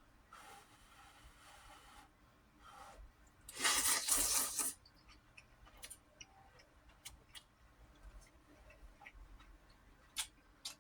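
A person eating ramen noodles: one loud slurp lasting about a second, about four seconds in, then soft chewing and small mouth clicks.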